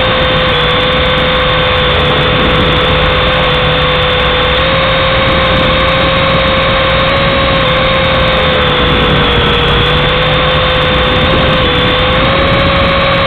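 Small remote-control toy helicopter flying, its electric motor and rotors giving a loud, steady whine that wavers slightly in pitch over a whirring rush.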